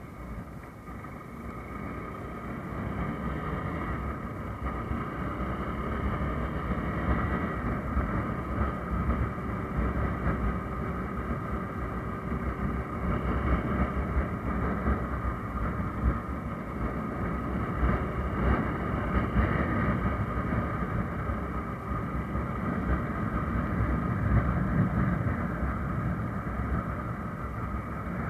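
Motorcycle running at road speed, its engine noise mixed with wind rushing over the microphone, getting louder over the first few seconds as it picks up speed.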